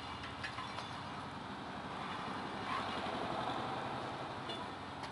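Hydraulic power unit of a vertical cardboard baler running with a steady hum, a little louder through the middle, with a few light clicks near the start.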